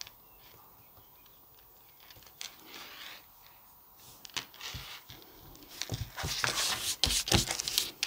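Paper and clear plastic pieces being handled: quiet at first, then rustling and crinkling with small clicks, loudest over the last two seconds or so.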